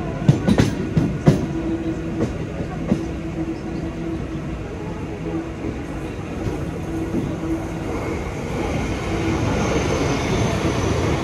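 Mumbai suburban local train (electric multiple unit) running, heard from its open doorway: wheels clack sharply over rail joints several times in the first few seconds over a steady hum and rolling noise, which grows louder near the end.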